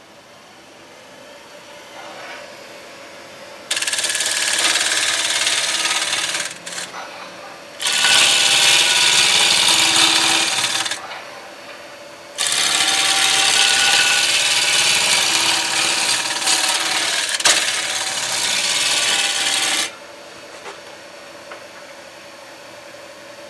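A wood lathe spinning a Golden Cypress spindle blank while a gouge cuts along it. There are three long stretches of loud cutting noise, the last about seven seconds long, and the lathe runs more quietly between them.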